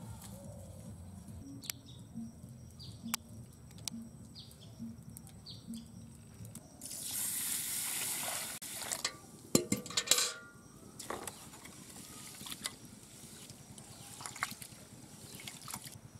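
Water poured from above into a metal pot of raw rice to wash it: a rushing splash lasting about two seconds midway. Right after come several sharp metallic clanks of the pot being handled, the loudest sounds here. Before the pour there are scattered light clicks and snaps of dry sticks being pushed into a clay stove.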